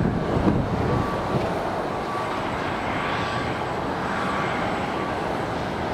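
Airport ambience: a steady rush of distant jet aircraft engines across the airfield, with faint short beeps recurring about once a second.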